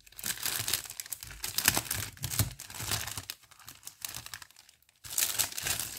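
Crinkling and rustling of sticker sheets and their packaging being handled and unfolded: irregular crackles that ease off past the middle and start again near the end.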